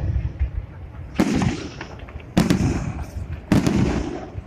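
Aerial firework shells bursting overhead: three loud bangs about a second apart, each trailing off in a low rumble.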